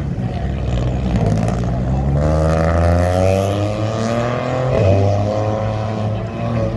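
Rally car engine revving hard as it runs the stage. Its note climbs steadily from about two seconds in and dips briefly near five seconds before it pulls on again.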